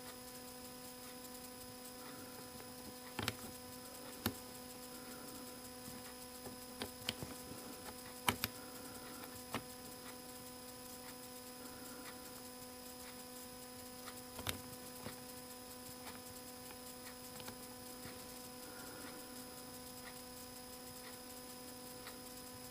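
Steady electrical hum with a few short, sharp clicks and taps scattered through it, from the small metal parts of an impact driver's quick-change bit holder being handled and fitted.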